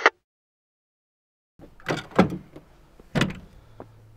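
Dead silence for about a second and a half, then three heavy thumps with a few lighter clicks between and after them.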